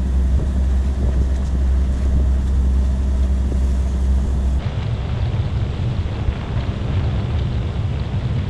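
Wind on the microphone and water rushing along the hull of a wooden cutter under way, with a steady low drone through the first half that stops abruptly about halfway through.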